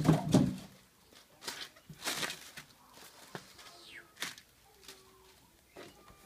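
Rustling and knocking of a cardboard box and plastic packaging bags as hands handle the contents around a boxed RC monster truck. It comes in a few separate bursts, the loudest right at the start.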